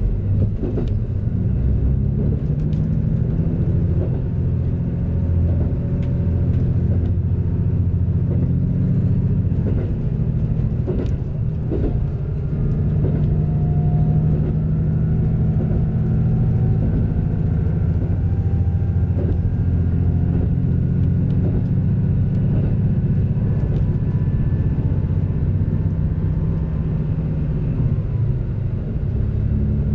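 KiHa 85 series diesel railcar running under way, its Cummins diesel engines giving a steady low drone, heard from inside the front cab area. A faint whine slowly rises in pitch from around the middle, and occasional clicks and knocks come from the wheels on the track.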